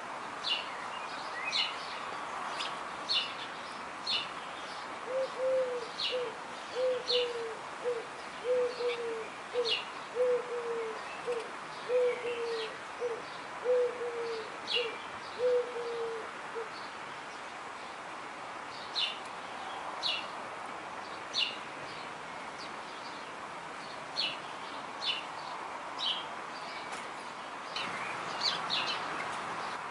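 Birds chirping with short high notes throughout. From about five seconds in, a low hooting call runs for about eleven seconds: evenly paced notes alternating long and short.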